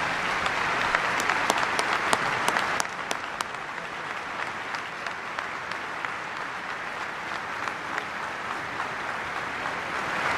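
Large audience applauding steadily, with single sharp claps standing out in the first few seconds; the applause eases slightly, then swells again near the end.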